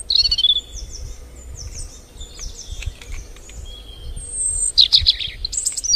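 Small birds chirping: a run of short, high, falling chirps with a few brief whistled notes, over a low background rumble and a few faint clicks.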